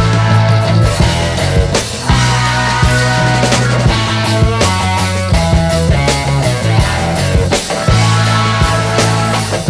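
Music with a heavy bass line and regular drum hits.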